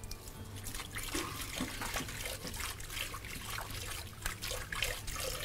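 Water running from a kitchen tap into a sink, with small clicks and knocks of things being handled under it.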